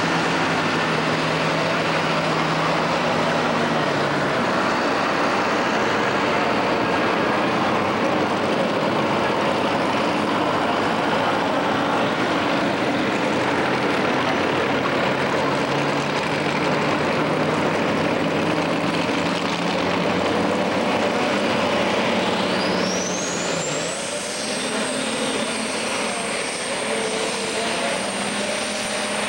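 Turbocharged diesel engine of a Super Stock pulling tractor running hard against the sled. About three-quarters of the way through, a turbo whine rises sharply to a high steady whistle as the tractor pulls away.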